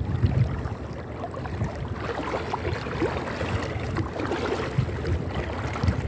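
Water sloshing and swishing around legs as people wade through fast-flowing, thigh-deep water, an uneven run of splashy strokes.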